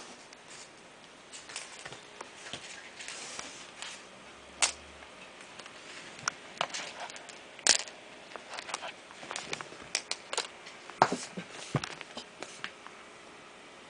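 Kittens' paws and claws scuffing, tapping and scratching on a wooden floor and against the camera, close to the microphone. The sounds are small irregular clicks and scuffs, with a few sharper knocks.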